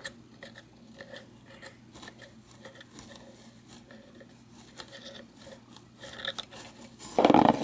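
Faint metallic scraping and small clicks as the threaded bearing cone is turned off the spindle of a rusty vintage Atom 440 bicycle pedal, over a steady low hum. A louder burst of handling noise near the end.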